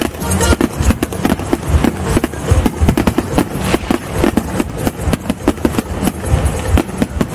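Aerial fireworks shells bursting in quick succession: a dense run of booms and cracks, several a second, with deep thuds underneath.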